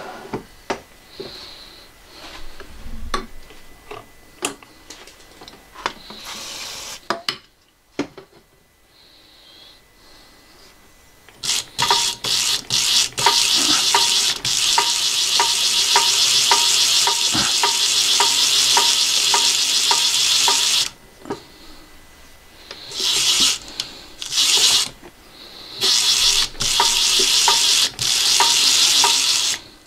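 EMCO metal lathe running with the tool cutting a small metal part. It gives a steady hiss with a regular tick about twice a second, runs for about nine seconds, stops, then runs again in two shorter bursts near the end. Before it starts there are small clicks and knocks of handling the tooling.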